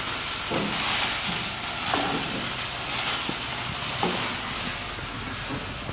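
Rustling hiss and a few soft knocks as a child climbs into an old car's cab right beside the microphone.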